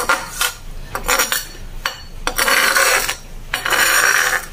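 Metal spatula scraping ground spice paste across a stone mortar: a run of rasping strokes of metal on stone, short ones at first and two longer ones in the second half.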